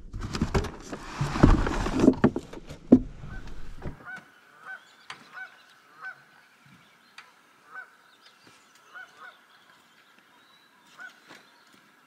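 Close, loud rustling and knocking of gear being moved about in a pickup's truck bed for about four seconds. After that, geese honk repeatedly in the distance, a short call every second or so.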